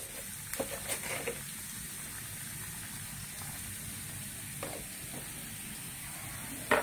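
Oil sizzling steadily in a frying pan with lemongrass frying in it. A few short clicks of a spatula against the pan come about a second in and again near the end.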